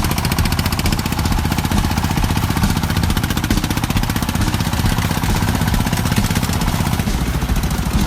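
Farm vehicle's engine running steadily with a rapid, even chugging.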